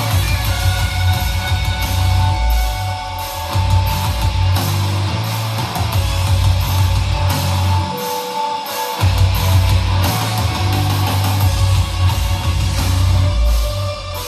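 Rock music with distorted electric guitars, drums and heavy bass, played loud through a Pioneer PBM5 portable party speaker on its rock EQ setting. The bass drops out for about a second just past the middle, then comes back.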